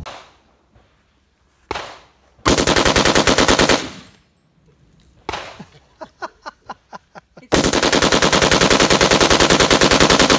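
Browning M1919 belt-fed machine gun firing: a single shot just under two seconds in, then a short burst of about a second and a half, then a longer burst of about three seconds near the end. A few light clicks fall between the bursts.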